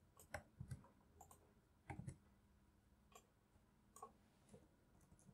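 Faint, irregular clicking of a computer mouse and keyboard as text is selected, copied and pasted.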